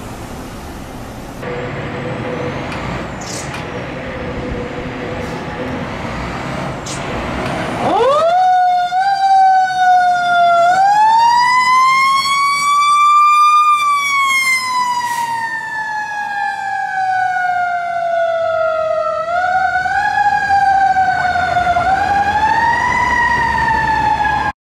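Fire rescue truck departing: engine and road noise, then about eight seconds in a mechanical siren winds up steeply from low and wails. Its pitch climbs slowly to a peak, falls away, and then makes a few smaller rises near the end.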